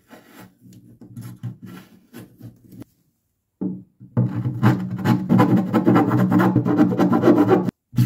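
A file rasping along a fiberglassed plywood corner, in a fast continuous run over the second half. In the first few seconds there are shorter, separate scraping strokes, from a utility knife trimming the glass cloth at the same edge.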